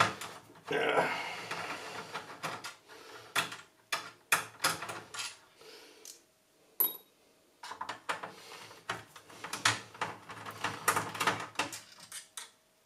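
Small metal tools and parts clicking and clattering as a stereo amplifier is taken apart, with many short knocks, a short lull about six seconds in, and a brief high squeak just before the clicking resumes.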